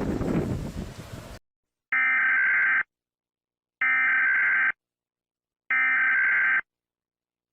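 A rush of wind-like noise cuts off abruptly. Then come three identical bursts of Emergency Alert System SAME header data tones, each a raspy two-tone burst just under a second long, about two seconds apart.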